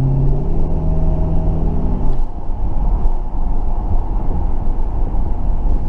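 2005 Dodge Magnum being driven: a steady engine hum that drops away about two seconds in, leaving a low rumble of road and tyre noise.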